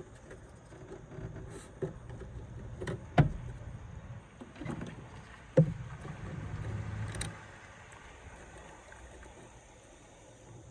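A series of knocks and clunks, the two loudest about three and five and a half seconds in, over a low rumble that stops about seven seconds in.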